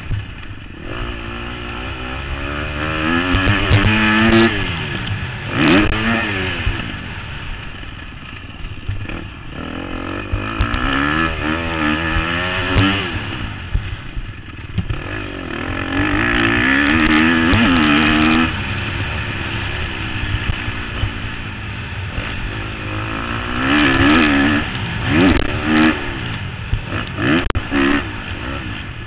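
A 2013 KTM 250 SX-F's single-cylinder four-stroke engine is revved hard and then falls off, over and over, as the bike accelerates down the straights, shifts, and backs off for the corners. Scattered knocks and clatter come from the bike over the rough dirt track.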